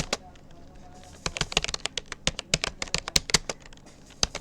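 Typing on a Rapoo computer keyboard in quick runs of separate key clicks. A pause of about a second comes near the start, and another brief one near the end.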